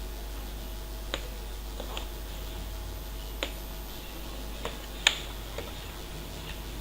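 Sharp plastic clicks, about five of them spaced a second or so apart, the loudest about five seconds in: the Dell P25F laptop keyboard being pressed down so its edges snap and lock into the palm-rest. A steady low hum lies underneath.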